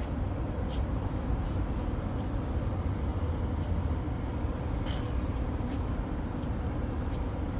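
Steady low rumble of outdoor city background noise, with faint footsteps on brick paving about every 0.7 s.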